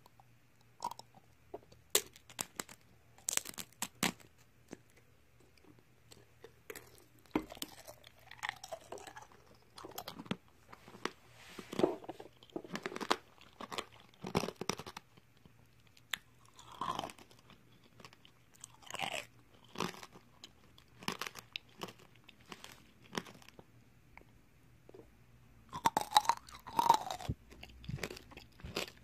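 Tanghulu being bitten and chewed: the hard candy shell on the fruit cracks and crunches in repeated bites, with a dense run of cracks near the end.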